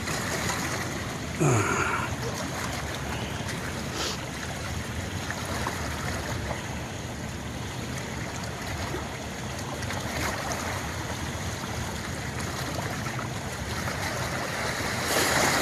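Steady rush of water pouring over a spillway. About a second and a half in, a brief, louder sound falls in pitch.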